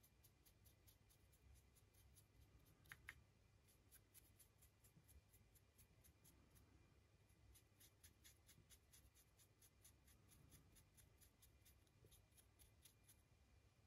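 Near silence: room tone with a faint, fast, regular ticking high up, and one small click about three seconds in.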